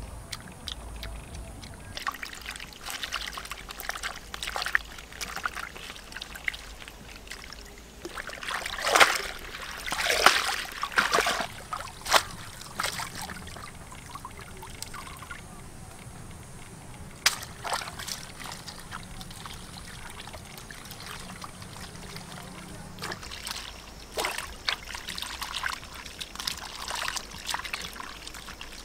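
Water splashing, trickling and dripping as food is washed by hand in a wicker basket dipped into the water, with a run of louder splashes about nine to twelve seconds in.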